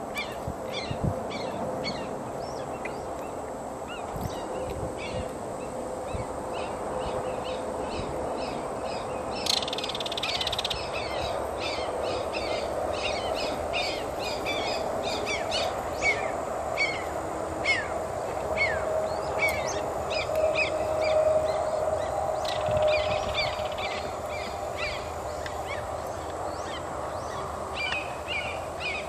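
Wild birds calling: many short, high chirps repeating over a steady outdoor background hum.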